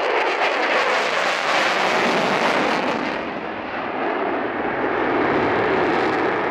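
Lockheed Martin F-22 Raptor fighter making a low pass, its two Pratt & Whitney F119 turbofans giving a loud, steady jet roar. The roar is harsh and crackling for about the first three seconds, then eases slightly and turns duller as the jet banks away.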